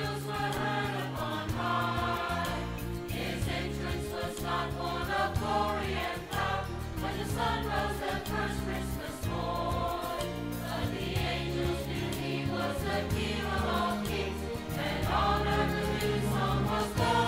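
Mixed church choir of men and women singing a Christmas cantata song in parts, without a break.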